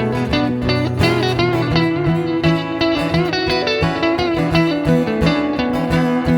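Live blues band playing an instrumental break: a lead guitar line with notes bending in pitch, over a steady bass and a regular beat.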